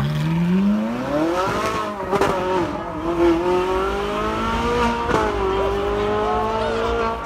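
A car engine revving up over about two seconds, then held at high revs with its pitch creeping slowly higher, as a burnout gets under way.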